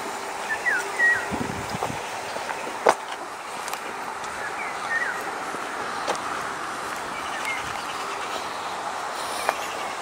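Small birds chirping in short downward-sliding calls, a few times in pairs, over a steady background hiss, with a few sharp clicks.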